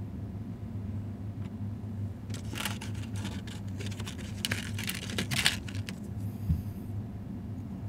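Hands handling small plastic parts, probably the memory modules and their packaging: a spell of crinkling, rustling and sharp clicks lasting about three seconds in the middle. A steady low hum sits underneath.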